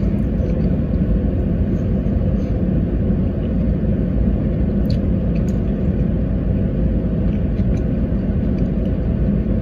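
Steady low rumble of a car idling, heard from inside the cabin, with a few faint clicks of chewing about halfway through.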